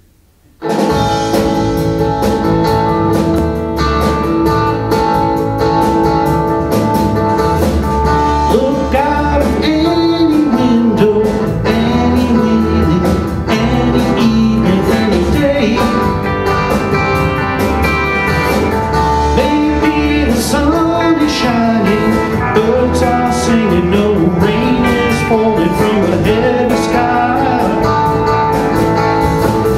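Live rock band with acoustic and electric guitars, bass and drums playing, kicking in suddenly just under a second in. A sung melody joins from about eight seconds in.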